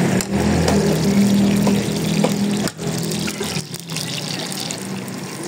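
Cooking oil poured from a ladle onto a large hot flat iron griddle (tawa) and sizzling, with a steady low hum underneath for the first half.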